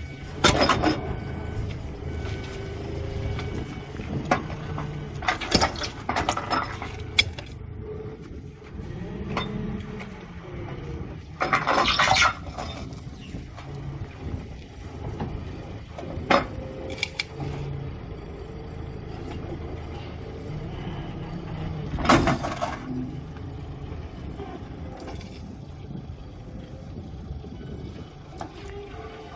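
An engine running steadily under a series of sharp, loud knocks a few seconds apart, one near the middle drawn out to about a second.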